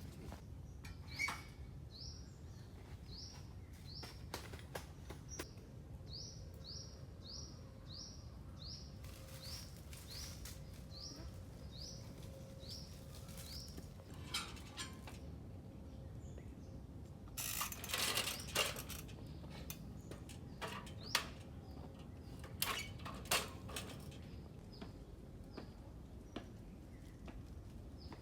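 A bird calling over and over: a long series of short, high, rising chirps, about one to two a second, that fade after the first dozen seconds. Partway through, a cluster of sharp clicks and knocks is the loudest sound.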